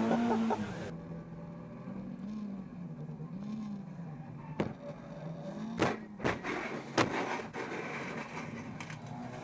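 Race car engine heard from inside the cabin, its pitch rising and falling with the revs. Several sharp bangs sound between about 4.5 and 7 seconds in as the car crashes and its windscreen cracks.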